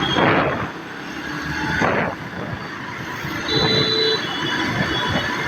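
Road traffic noise with vehicles passing, with a short horn-like tone about three and a half seconds in.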